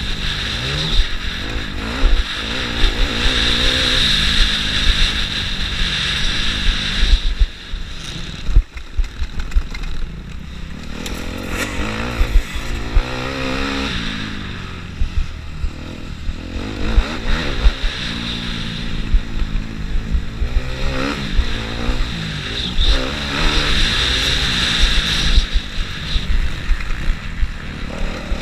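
Motocross bike engine heard from a camera mounted on the bike, revving up and down in pitch as the rider works the throttle through the track's turns. There is a throttle-off lull about eight seconds in, with wind rumble on the microphone throughout.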